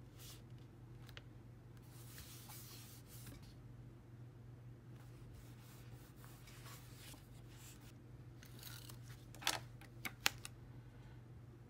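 Paper photo prints and washi tape sliding and rustling softly on a notebook page as they are pressed into place. A few sharp clicks come near the end.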